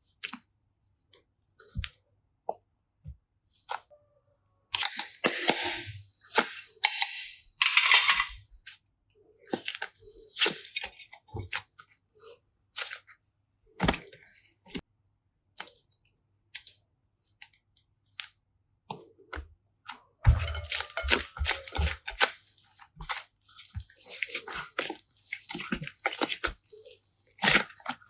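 Slime being squished and pressed by hand, with scattered sharp clicks and crackles and two longer spells of dense crackling, the first about five seconds in and the second from about twenty seconds in.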